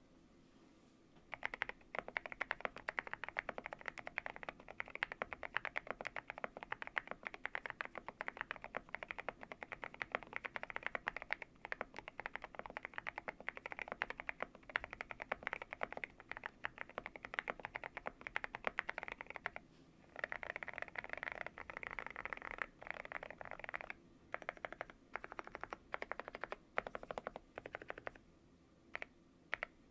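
Typing on a GMK87 custom mechanical keyboard with lubed Akko Rosewood switches and MSA-profile keycaps, in a tape-modded, foam-filled case: a steady stream of keystrokes. The typing turns denser and faster about twenty seconds in, then thins to scattered strokes and a few last key presses near the end.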